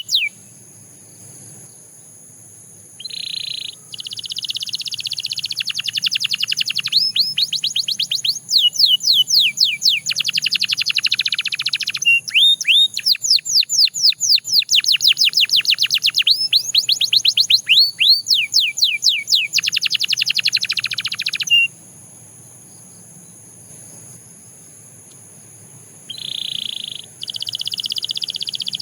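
Canary singing in long phrases of fast trills and runs of quick down-slurred whistled notes, broken by pauses of a few seconds, one near the start and one in the last third. A faint steady high-pitched tone runs underneath.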